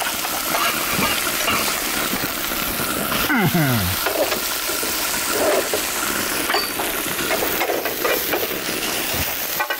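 Egg omelette frying in oil in a non-stick pan, a steady sizzle, with the scattered clicks and scrapes of a spatula working the food.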